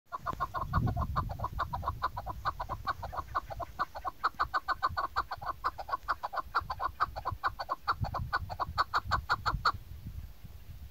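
Chukar partridge calling: a fast run of short clucking notes, about seven a second, that stops near the end. Wind rumbles on the microphone now and then.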